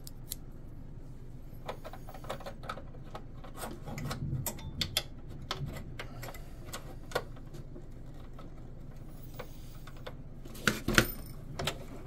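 Scattered light clicks and taps of small boat driveline hardware being handled and fitted, a strut and shim going onto the flex cable, with a cluster of louder clicks near the end.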